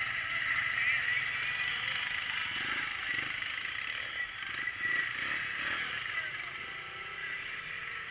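Off-road vehicle engine running steadily, with faint voices underneath.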